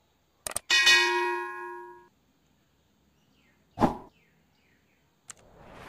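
Subscribe-button animation sound effects: a mouse click, then a bell ding that rings and fades over about a second. A short hit comes about four seconds in, and a whoosh near the end.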